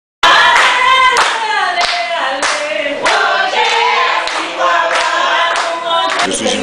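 A group of voices singing together, with rhythmic hand clapping.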